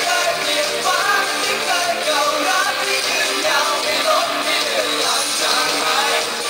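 A pop-rock band playing a song live with guitars and a singing voice.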